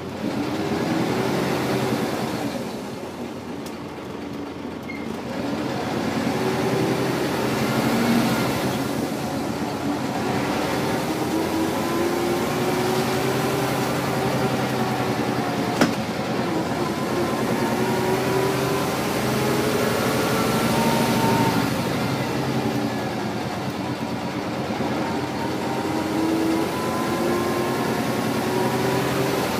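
Scania single-deck bus diesel engine and ZF automatic gearbox, heard from inside the saloon as the bus drives and gathers speed. The engine note rises in pitch several times, and there is one sharp click about halfway through.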